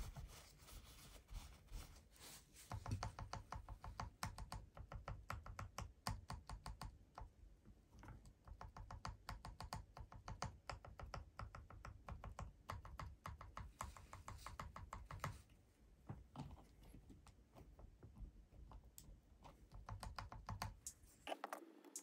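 Plastic keyboard stabilizers on a bare keyboard plate being pressed repeatedly by hand: a quiet, fast run of plastic clicks and clacks, several a second. The clicking stops abruptly near the end.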